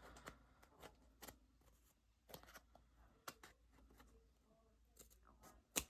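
Near silence with faint, scattered taps and light rustles of paper being handled at a craft desk, with a sharper click just before the end.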